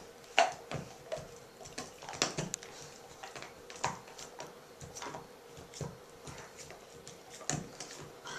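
Two German Shepherd dogs gnawing on chew bones: teeth clicking and cracking against the bones at an uneven pace, a few sharp clicks a second.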